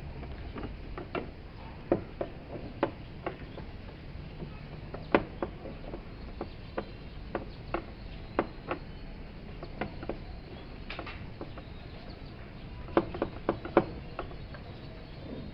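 Irregular light clicks and knocks, a few louder than the rest and several in quick succession near the end, over a steady low hum: tools and parts being handled while a washing machine is taken apart.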